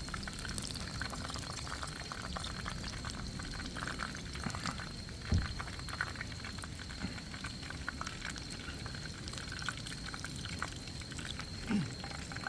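Shiitake mushroom tempura frying in hot oil: a steady bubbling and crackling, many small pops, with a brief dull knock about five seconds in.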